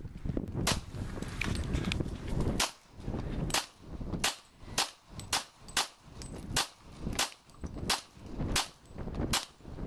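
Handgun fired in a quick string of about a dozen shots, each a sharp crack, a little under a second apart.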